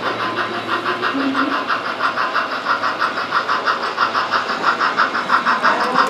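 Sound-equipped On30 model steam locomotive chuffing from its onboard speaker, a fast, even run of chuffs that grows louder as the train comes closer.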